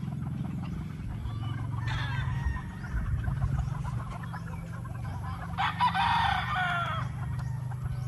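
Gamefowl roosters crowing: one crow about two seconds in, then a longer, louder crow from about five and a half seconds that falls in pitch at its end. A steady low hum runs underneath.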